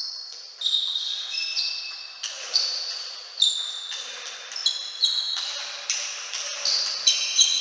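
Table tennis rally: the plastic ball clicks in quick alternation off the rackets and the table, two to three hits a second, each with a short high ring.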